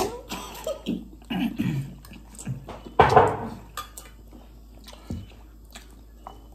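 Two people slurping and chewing instant ramen noodles off forks, in short irregular bursts, with a brief louder vocal sound about three seconds in.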